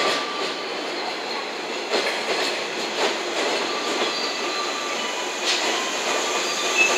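JNR 115 series electric multiple unit rolling past: a steady rumble of wheels on rail with sharp knocks at irregular intervals as the wheels cross rail joints, and thin squeals from the wheels coming and going.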